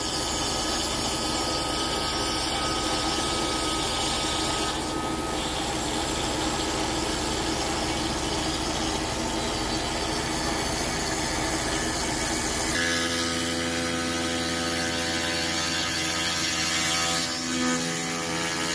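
CNC router spindle running with a surfacing bit, over the low rumble of an air compressor that stops about 13 seconds in, leaving a steady set of spindle tones. Near the end the bit starts facing the pine block.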